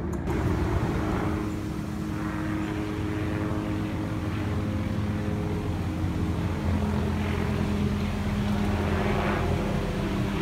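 Propeller airplane flying over: a steady engine hum with a low pitched drone that runs on without a break.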